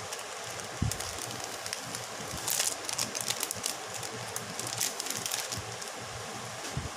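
Clear plastic packaging crinkling as a packet of puppy ID collars is handled and turned over, in two crackly bursts around the middle, with a low knock about a second in over a steady hiss.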